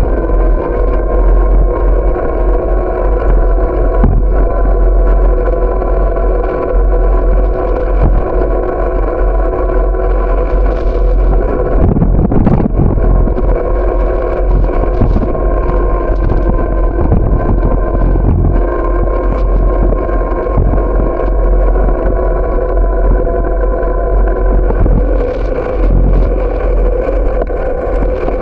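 Steady wind and road rumble on a bicycle-mounted camera's microphone while riding, with a constant hum over it. There are a few short knocks, and a rougher patch about twelve seconds in, as the bike goes over bumps.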